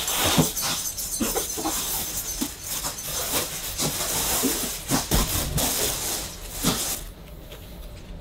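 Crinkly plastic mailer bag rustling and crackling as hands open it and rummage inside, with many short sharp crinkles; it goes much quieter about seven seconds in.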